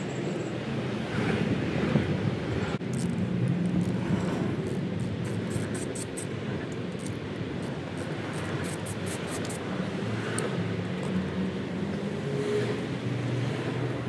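Ratchet wrench clicking in quick, uneven runs as the valve cover bolts on a Honda Navi's engine are turned, over a steady background rumble like traffic.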